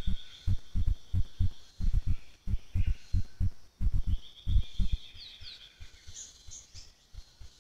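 Forest sounds: a run of dull low thumps, about two or three a second, that stops about five seconds in, over a steady high buzz that comes and goes, with a few short bird chirps near the end.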